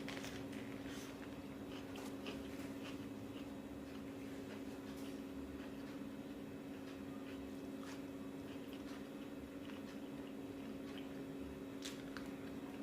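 Quiet chewing and small wet mouth clicks of someone eating fast food close to the microphone, over a steady low electrical hum.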